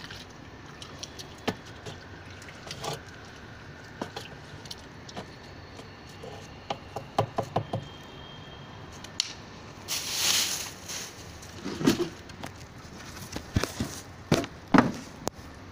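Handling noise: scattered knocks and clicks, a quick run of taps about seven seconds in, a plastic bag rustling about ten seconds in, then a few dull thumps.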